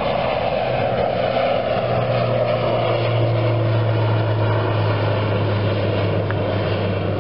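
Single-engine propeller airplane climbing out just after takeoff, its engine and propeller making a steady drone with a low hum that grows stronger about a second in.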